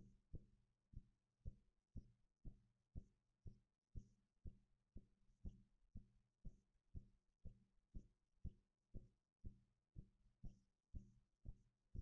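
Faint, steady low thumping at about two beats a second, like a background drum or heartbeat, over a steady low hum; its source is unknown.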